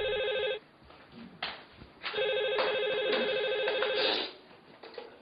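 Telephone ringing with a warbling trill: one ring ends about half a second in, and a second ring of about two seconds follows.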